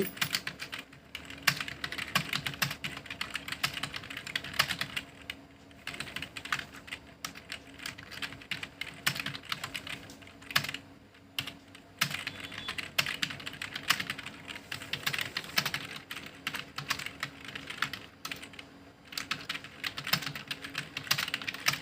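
Fast touch-typing on a computer keyboard: a rapid, continuous run of key clicks with a few short pauses.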